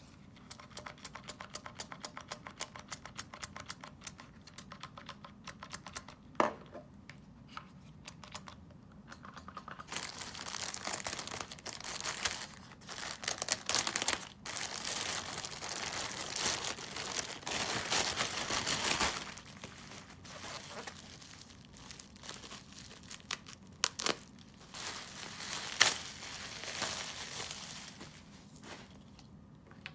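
Plastic courier mailer pouch being slit open with a blade and torn, the plastic crinkling and crackling as it is handled. A run of rapid small clicks comes first, and the tearing and crinkling are loudest in the middle. Plastic wrapping on a bottle rustles near the end.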